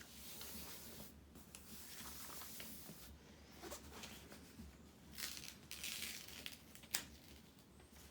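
Plastic cover film being peeled off a diamond painting canvas's double-sided adhesive, a crackling tear in uneven spells, with a short click near the end.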